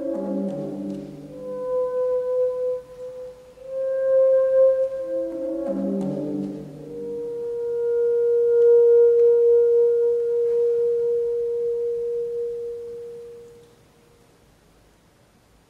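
Saxophone playing sustained notes around the same pitch, broken twice by quick falling runs of lower notes, then one long held note that fades away about 13 seconds in.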